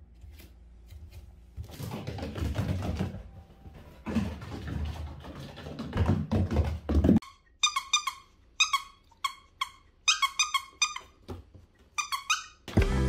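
Beagle puppy at play: scuffling and fabric rustling on a wooden floor in two stretches, then a run of short, high squeaks, about two a second, from about seven seconds in. Background music starts near the end.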